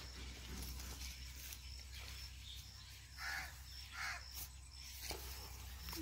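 A crow cawing twice, about three seconds in and again a moment later, over a faint outdoor background with a high-pitched chirp repeating at a steady pace.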